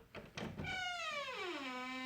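Door hinge creaking as a door swings open: a long, drawn-out creak that begins about half a second in and slides steadily down in pitch, after a couple of faint clicks.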